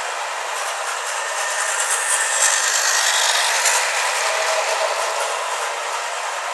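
Battery-operated toy bullet train running on its plastic track, its small motor whirring and the wheels and cars rattling steadily.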